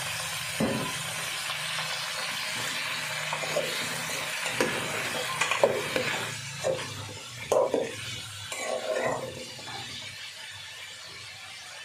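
Cubes of squash sizzling in a hot aluminium pot while a metal spoon stirs them, scraping and clinking against the pot a handful of times in the middle. The sizzle dies down near the end.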